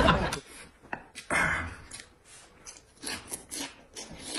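Eating noodles from a bowl of broth: one loud slurp about a second and a half in, then a run of short, quick clicking chewing sounds.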